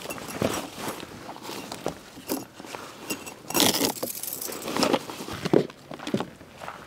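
Camping gear being handled and unpacked: irregular clinks, knocks and rustling, with a louder rustle about three and a half seconds in.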